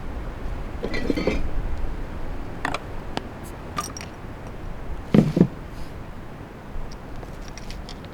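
A few scattered light knocks, clicks and clinks of objects being handled, with two louder thumps in quick succession about five seconds in.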